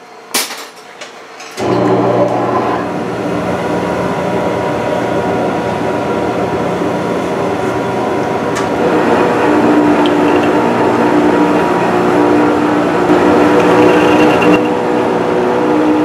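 A Monarch 10EE metal lathe starts up about a second and a half in, after a sharp metallic click, and runs steadily with a hum of several steady tones. More tones join about halfway through as it turns an aluminum knob casting in a three-jaw chuck, taking the rough cast skin off.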